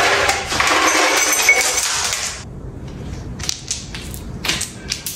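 Ice cubes spilling and clattering onto a hard tiled floor: a dense rattling clatter that cuts off after about two and a half seconds, followed by a few scattered light clicks.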